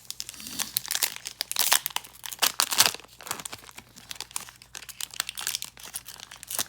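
Crinkly wrapper of a trading-card pack being handled and torn open: a dense run of irregular crackles, loudest in the first three seconds, then lighter.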